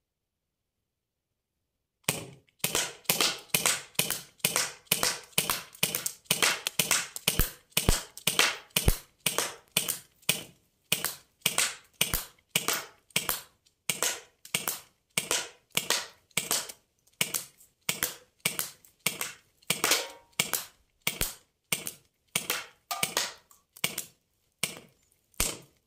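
CO2 BB gun firing a long string of single shots, about two a second, starting about two seconds in: sharp pops that die away quickly.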